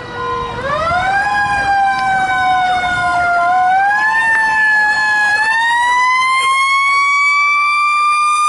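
Fire truck siren wailing as the ladder truck approaches: one strong tone whose pitch climbs about half a second in, sags slightly, then climbs again from about halfway through.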